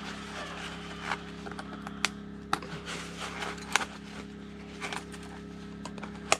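A dog's life jacket being strapped on: fabric rustling and rubbing, with several sharp clicks of the straps and buckles, the last one loudest near the end. A steady low hum runs underneath.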